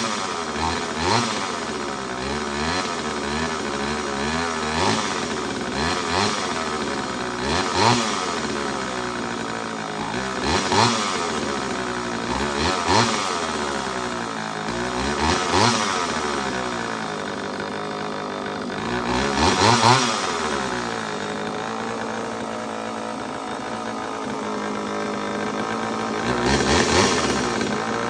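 Homelite Super EZ two-stroke chainsaw engine running, the throttle blipped so it revs up and falls back to idle about ten times, every couple of seconds at first and then more spaced out.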